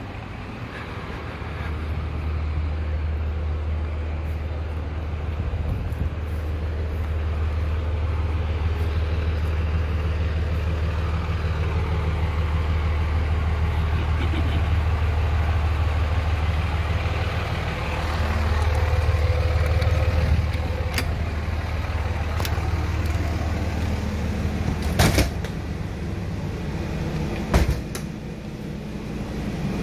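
Steady low mechanical hum, like an idling engine or motor. Two sharp knocks come near the end, about three seconds apart.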